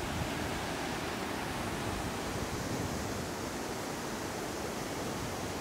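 Steady rushing of creek water tumbling over boulders in whitewater rapids.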